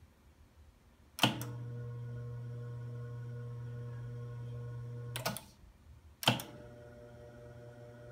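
Otari MX-5050 reel-to-reel tape deck: a transport button is pressed with a sharp click about a second in, and the transport engages with a steady motor hum that stops with another click about five seconds in. A second press soon after starts the hum again, quieter.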